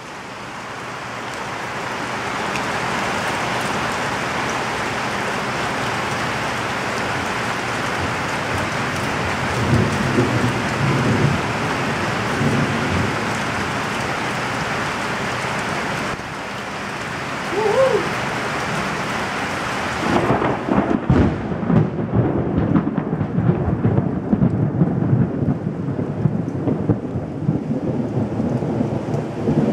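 Heavy rain pouring steadily, with low thunder rumbling about ten seconds in. About twenty seconds in, a big boom of thunder breaks and keeps rumbling and rolling.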